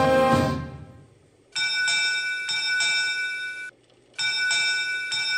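Theme music fades out, then a ship's bell is struck in quick pairs, in two groups with a short gap between them, each group cut off abruptly. These are the quarterdeck bells rung to announce an arrival aboard a Navy ship.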